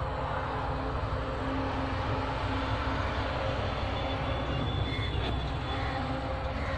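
A steady, low engine-like drone with an even background hiss.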